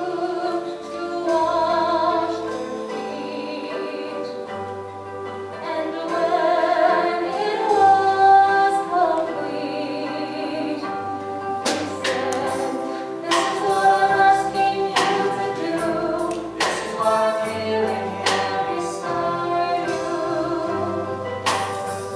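A live worship band plays a song: a woman sings the melody over electric guitar and keyboard. Drum and cymbal hits come in about halfway through.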